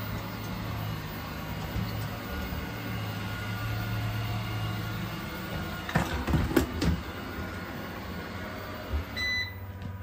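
eufy robot vacuum running: a steady low motor hum with brush and suction noise. A cluster of knocks comes about six to seven seconds in, and a short high beep sounds near the end.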